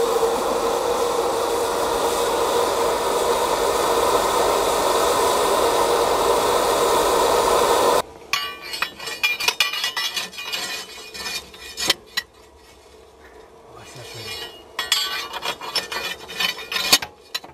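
A miniature steam locomotive's steam blower hisses steadily, a loud even rush with a held tone, drawing the fire up hard. About halfway through it cuts off, leaving quieter irregular crackling and clicks from the fire in the open firebox.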